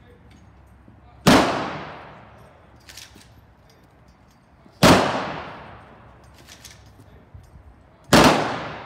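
Three-volley rifle salute by a military funeral firing party. Three single sharp cracks of several rifles fired together, about three and a half seconds apart, each ringing away over about a second.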